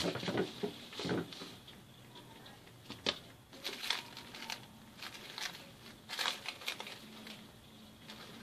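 Plastic cling film crinkling and rustling as it is pulled out and pressed around a block of dough, in short irregular bursts with a few sharp crackles.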